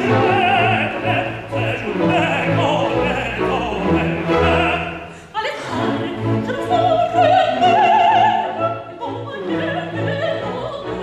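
Operatic singing with strong vibrato over a theatre orchestra with a pulsing bass line, heard from the auditorium. The music drops away briefly about five seconds in, then comes back in.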